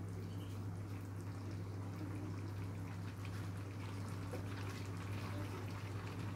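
Soy-sauce stew of beef and vegetables simmering in a frying pan with a soft bubbling and faint crackles, over a steady low hum.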